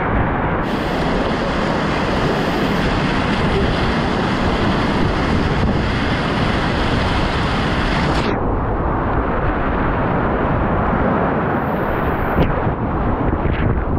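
Loud, steady rush of big-volume whitewater rapids heard from right at the water in a kayak, with paddle strokes and spray splashing close by. The hiss above the rush drops away about eight seconds in, and there is a short knock near the end.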